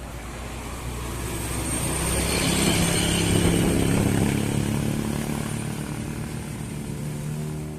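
Tour bus's diesel engine labouring uphill as it passes close, swelling to a peak about three to four seconds in and then fading away.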